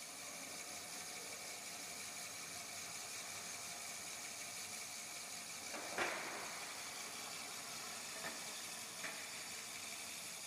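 Fish feed extruder running: a steady hiss with faint whining tones as it pushes out steaming pellets. A short loud burst comes about six seconds in, and two smaller ones follow a few seconds later.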